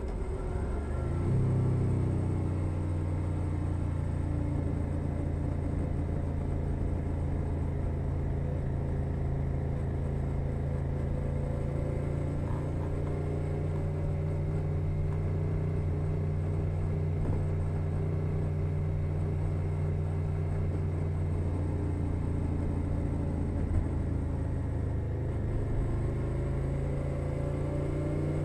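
2021 Suzuki SV 650 V-twin engine through a Leo Vince Nero exhaust, heard from under the seat while riding. The revs drop and climb again about a second in, then hold at a steady cruise and pick up slightly near the end.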